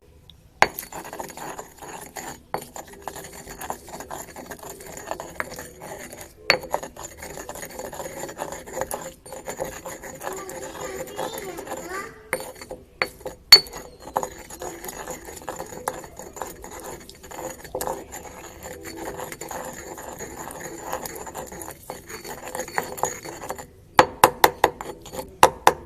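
Clinking, knocking and scraping of kitchen utensils as raw turmeric is crushed with a little water to make a yellow dye, with a run of quick sharp strikes near the end.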